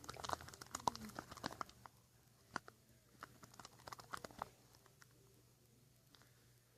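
Pencils stirring glue, glitter and laundry detergent as it turns into slime: dense quick sticky clicks and scrapes for the first couple of seconds, then scattered clicks that die away after about four and a half seconds.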